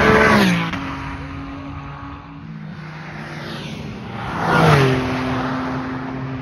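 Two Porsche Caymans passing at speed, the first right at the start and the second about four and a half seconds in, each engine note dropping in pitch as the car goes by.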